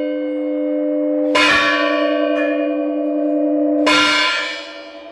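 Church bell ringing: two strokes about two and a half seconds apart, each leaving a long, deep hum with bright overtones. The ringing dies down near the end.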